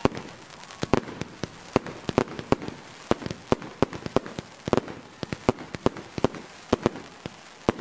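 Professional aerial fireworks firing in quick succession: an uneven run of sharp bangs, about three a second, from shots launching and bursting, each trailing off in a short echo.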